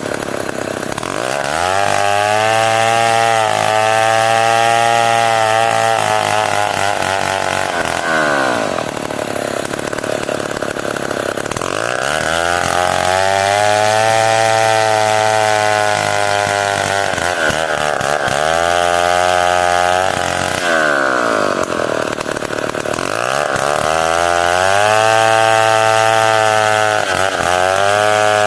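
Stihl 070 two-stroke chainsaw revved up to full throttle and held there, dipping slightly as it works, then dropping back to idle; this happens three times, the sound of ripping planks from a log.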